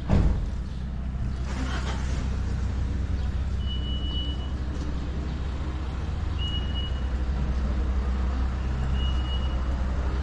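A vehicle engine running steadily, with a loud thump just at the start. A short high beep sounds three times, about every two and a half seconds.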